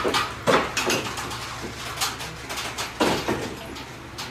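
Footsteps and clacks on a tiled floor: a few sharp, irregular knocks with a short echo, bunched at the start and again about three seconds in, over a steady low hum.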